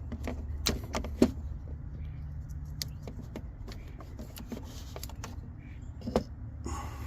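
Scattered clicks and clinks of a VANOS camshaft solenoid being worked out of the engine by hand, the sharpest about a second in and another near the end, over a steady low hum.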